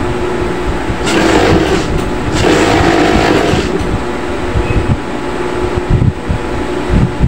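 Industrial twin-needle flatbed coverstitch sewing machine stitching knit fabric. It runs in two louder bursts, about a second in and again around two and a half seconds in, over a steady hum. It is sewing the elastic waistband of a pair of children's shorts.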